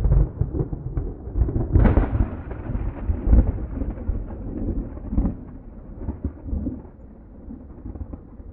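Long rolling thunder: a series of sharp cracks, the loudest about two seconds in, then a deep rumble that slowly fades.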